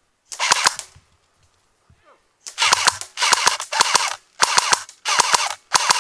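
Airsoft rifle firing short full-auto bursts of rapid clacks: one burst, then after a pause of about a second and a half, six more bursts in quick succession.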